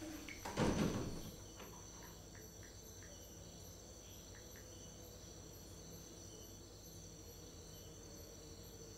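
A thump about half a second in, then crickets chirping steadily and faintly in a quiet night ambience, with a regular high chirp about twice a second.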